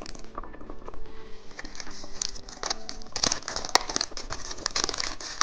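Plastic candy wrapper crinkling and crackling as it is handled, the crackles growing denser in the second half.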